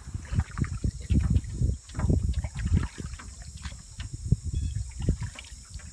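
Canoe paddling: the paddle dipping and splashing in the water, with irregular low thumps and a few sharp knocks.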